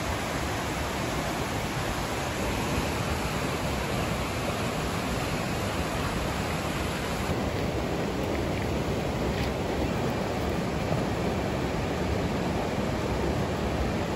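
Mountain creek rushing over boulders in whitewater rapids: a steady, full rush of water.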